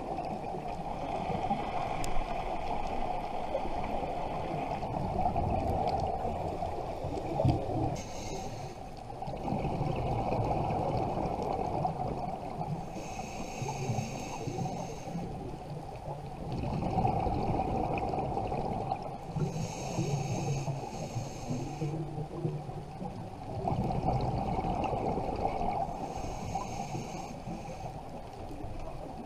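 Scuba diver breathing through a regulator, heard underwater: a hiss on each inhale and bubbles on each exhale, in a slow cycle about every six seconds.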